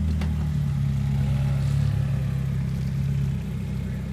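A car engine running steadily with a low hum, easing slightly about three seconds in.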